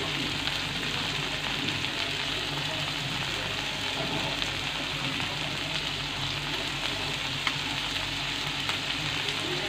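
Sliced onions and chopped garlic sizzling steadily in hot oil in a metal wok, with a faint click now and then.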